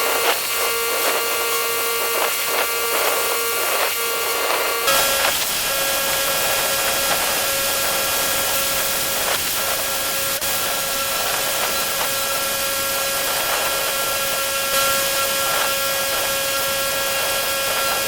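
Pressure washer running, with the steady whine of its engine and pump under the hiss of the high-pressure water spray. About five seconds in, the whine jumps slightly higher in pitch and stays there.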